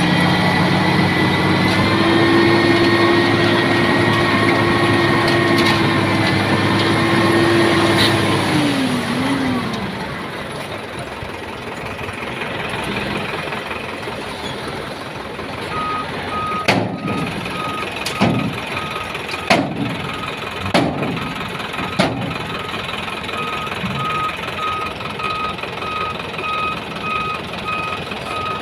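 Heavy dump truck's diesel engine running loud and steady, then easing off about eight seconds in. About halfway through, the truck's reversing alarm starts a steady run of beeps, with a few sharp knocks in between.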